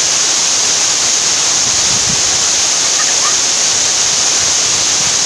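Waterfall pouring over a rock face onto rocks and a pool: a loud, steady rush of falling water.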